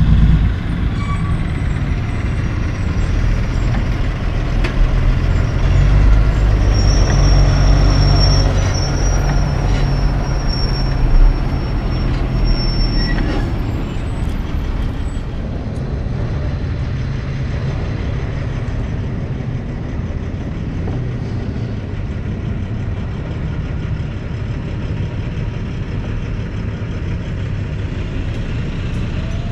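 Loaded diesel logging trucks passing close by: a heavy, low engine rumble that builds and peaks in the first half, with a thin high steady squeal for several seconds and a short sharp crack about eleven seconds in. In the second half it settles to quieter steady traffic noise.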